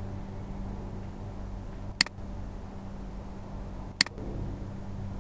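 Two sharp computer mouse clicks about two seconds apart, over a steady low electrical hum.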